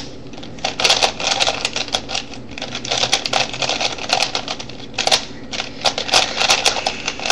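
Rattling plastic clicks and clacks of a Rubik's Cube being handled and its layers turned, in quick irregular clusters.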